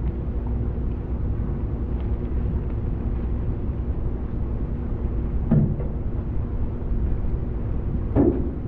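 Steady low drone of a passenger ferry's engine, heard from on board. Two short louder sounds come about halfway through and again near the end.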